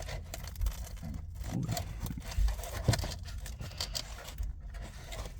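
Pocket knife scraping and sawing through a thin, crispy pizza crust, with irregular scrapes, crackles and soft clicks. The cutting is hard going.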